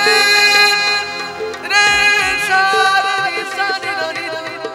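Male singer performing a Punjabi song live with harmonium accompaniment: two long sung phrases, each sliding up into a held note, one at the start and one just under two seconds in, fading near the end.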